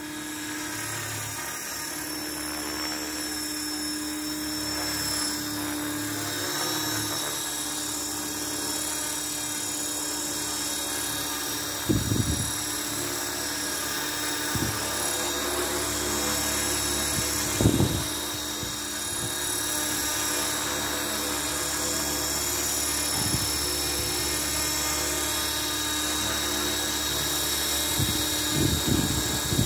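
Align T-Rex 450 V2 radio-controlled electric helicopter in low flight: a steady high-pitched motor whine over the whir of the rotor blades. Brief low rumbles of rotor downwash on the microphone come about twelve and eighteen seconds in, and again near the end as the helicopter comes close.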